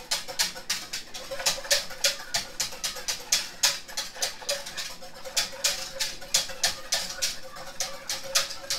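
A wire whisk beating yogurt starter into warm milk in a stainless steel pot, its wires clinking against the metal sides in a quick, even rhythm of about four or five strokes a second.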